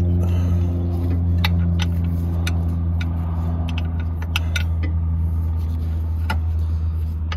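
A vehicle engine idling steadily, with a scattering of sharp light metal clicks and clinks from tools and hardware being handled.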